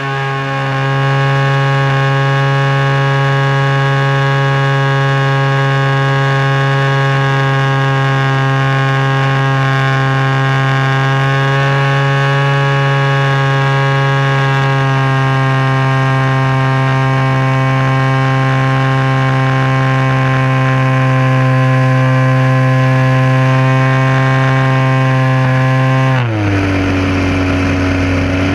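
DLE 20 single-cylinder two-stroke gasoline engine turning a 16x8 propeller, running loud and steady at high throttle, heard from a camera bolted under the model plane. About two seconds before the end, the throttle comes back and the pitch drops suddenly to a lower steady drone.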